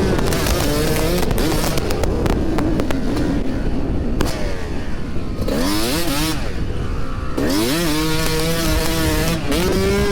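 Yamaha YZ250 two-stroke dirt bike engine revving and pulling, its pitch rising sharply about halfway through and again a couple of seconds later, then holding steady. Heavy wind buffets and distorts the microphone throughout, with crackling in the first few seconds.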